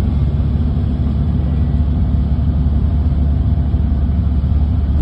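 Steady low road rumble of a moving car, its engine and tyres running at highway speed.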